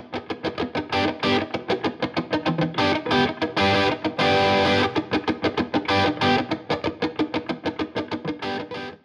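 Instrumental intro music led by a guitar playing quick, evenly picked notes, about six a second, broken a few times by longer held chords.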